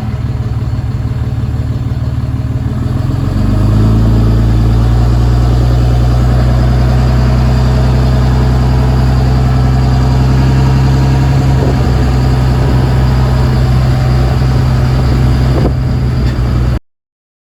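Truck engine running steadily while driving with a trailer in tow. About three and a half seconds in it steps up in pitch and gets louder, then holds even until it cuts off abruptly near the end.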